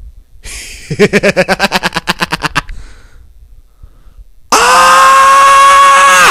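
A person's quick, rapid laugh lasting about two seconds. It is followed near the end by a loud, steady, high whistle-like tone that holds one pitch for nearly two seconds and cuts off sharply.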